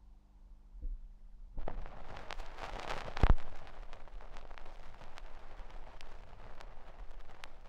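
Crackling hiss full of small clicks that starts abruptly about a second and a half in, swells to one loud pop about three seconds in, then goes on as a steady crackle with scattered clicks.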